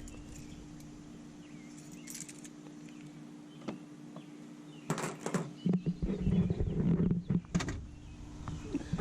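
Scattered clicks and knocks of parts being handled, over a faint steady hum; from about five seconds in, a busier run of knocking and rustling.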